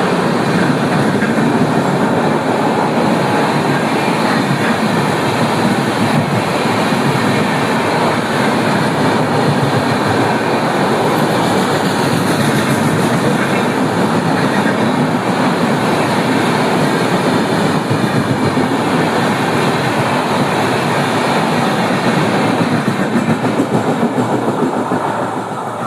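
A train running past close by, its wagons rattling steadily over the rails with a fast clickety-clack. The sound eases off near the end.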